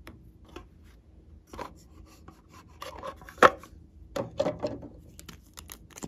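Small plastic clicks and taps from handling a plastic lip gloss tube, with one sharp click about three and a half seconds in and a cluster of handling taps just after it. Light clicks near the end as the tube's cap and wand are pulled off.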